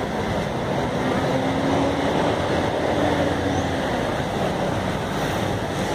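Busy city street traffic: cars and buses running in a congested road, a steady rumble with an engine tone standing out for a couple of seconds in the middle.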